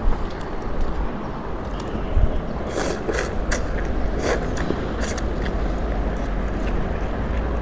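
Noodles being eaten: chewing with a few sharp wet mouth clicks and smacks in the middle, over a steady low rumble.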